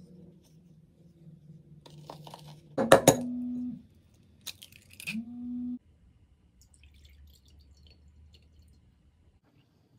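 An egg knocked sharply against the rim of a bowl to crack it about three seconds in, followed by softer clinks of shell and bowl around five seconds; the rest is faint kitchen handling.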